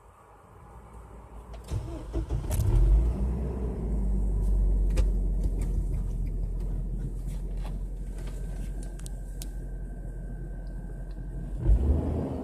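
Hummer H3's 3.5-litre Vortec inline five-cylinder engine cranked and started: it catches about two seconds in, flares, then settles into a steady idle rumble. It swells briefly near the end.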